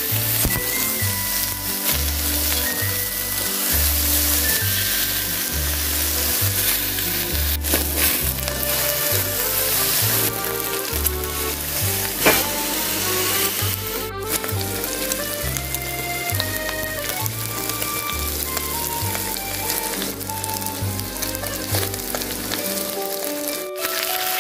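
Thick blocks of pork belly sizzling steadily as they sear in a hot pan, with a sharp knock about halfway through. Background music with a pulsing bass plays over it.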